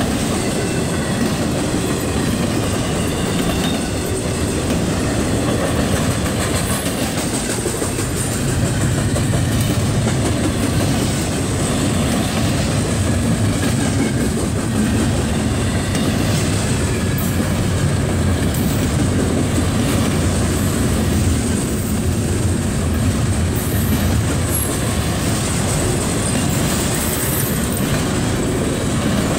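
CSX double-stack intermodal freight train rolling steadily past a grade crossing: a continuous rumble of wheels and well cars, with clickety-clack over the rail joints.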